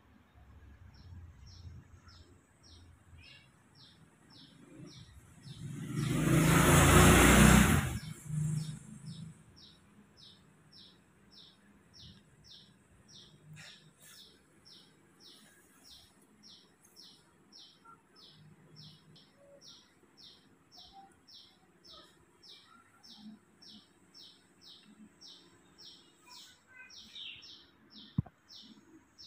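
A bird chirping over and over, about two short high chirps a second. About six seconds in, a loud rushing noise swells up for about two seconds.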